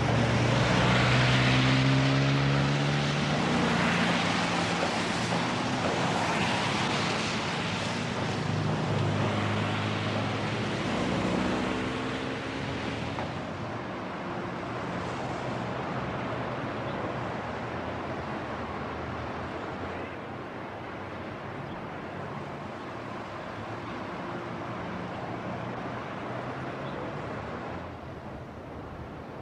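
Car engines accelerating, their pitch climbing and dropping back several times as they change gear, over road traffic noise. From about halfway the sound settles into a steadier, quieter traffic hum.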